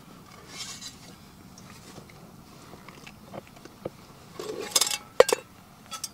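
Canvas rucksack rustling as camping gear is handled and taken out, with small clinks of gear being set down and one sharp knock about five seconds in.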